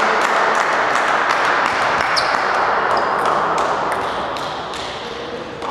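Table tennis balls clicking off bats and tables, many sharp irregular ticks a second, echoing in a large sports hall over a steady murmur of background noise.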